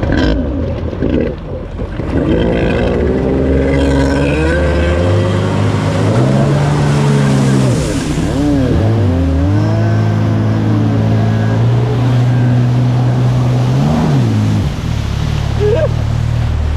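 Early stand-up jet ski's two-stroke engine revving as the rider throttles on and off: it climbs in pitch about two seconds in, surges higher, dips sharply twice, and drops back near the end. Water spray hisses underneath.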